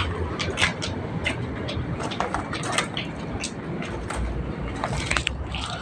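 Footsteps crunching over rubble and broken debris on a concrete floor, an irregular run of short crackling clicks. A low rumble swells underneath near the start and again about four seconds in.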